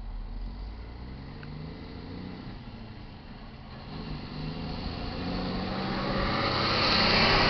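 Semi-truck's diesel engine pulling away and climbing in pitch a few times as it works up through the gears, then engine and tyre noise growing steadily louder as the truck passes close by near the end.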